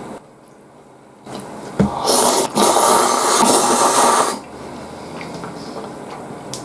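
A person slurping tsukemen noodles up from the dipping broth: a loud hissing slurp starting about two seconds in and lasting about two and a half seconds, with a short break partway through.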